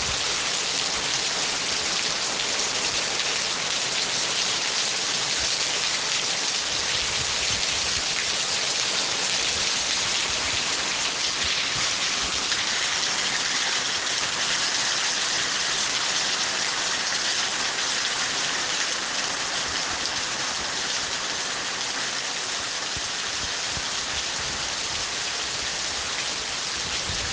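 Steady rain falling, an even, dense hiss of drops that keeps the same level throughout.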